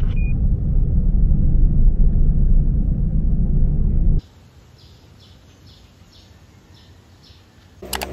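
Low rumble of a moving car, road and engine noise, which cuts off abruptly about four seconds in. A much quieter background follows, with faint high chirps repeating every few tenths of a second.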